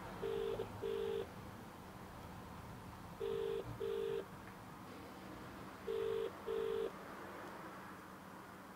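British double-ring ringing tone of an outgoing phone call, played through the Blitzwolf BW-F2 Bluetooth speaker: three double rings, each a pair of short steady beeps, repeating about every three seconds. The call is still ringing and has not been answered.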